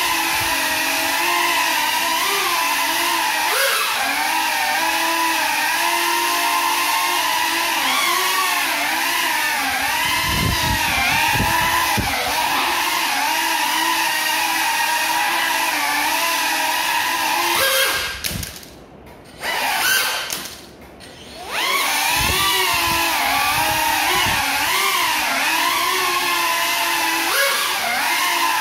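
Small FPV quadcopter's motors and propellers whining, the pitch wavering up and down with the throttle, flown on broken propellers. The whine cuts out twice for about a second, some eighteen and twenty seconds in, and there are a few low thumps.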